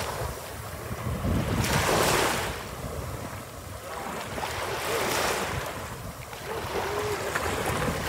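Small waves washing up at the edge of a sandy shore, two surges of foam swelling and fading a few seconds apart, with wind rumbling on the microphone.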